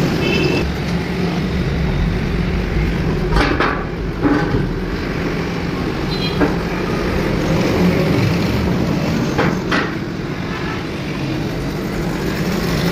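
Steady rumble of street traffic, with a handful of sharp metal knocks as an engine block is loaded onto a steel hand cart.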